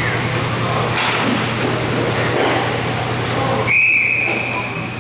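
A referee's whistle blows one long, steady blast late on, over continuous rink noise with a low hum. A sharp knock comes about a second in.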